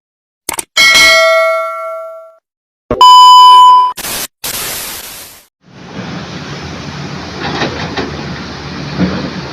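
Two bell-like ding sound effects about two seconds apart, the second very loud and cut off abruptly, followed by a brief fading whoosh. From about six seconds in, a steady rumble of engines.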